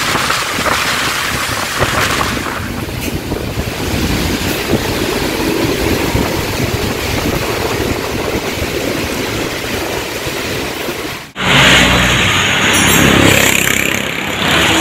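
Heavy rain hissing, with an intercity bus's diesel engine running as the bus pulls away. About eleven seconds in, the sound cuts off abruptly and jumps to a louder bus engine passing close.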